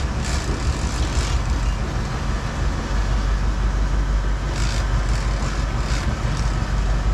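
Boat engine idling in neutral: a steady low rumble under a constant hiss, with a few brief louder rushes of hiss about two thirds of the way through.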